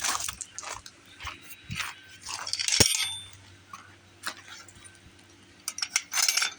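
Handling noise: rustling and light clattering of small objects, with one sharp metallic clink that rings briefly about three seconds in, over a low steady hum.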